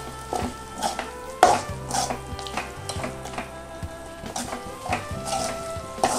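Mutton sizzling in a kadai as a ladle stirs it, with repeated sharp scrapes and knocks of the ladle against the pan about every half second, the loudest about one and a half seconds in.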